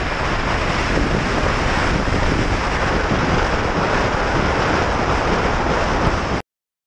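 Wind rushing over the microphone of a motorcycle travelling at road speed, mixed with road noise. The sound cuts off abruptly to dead silence about six seconds in.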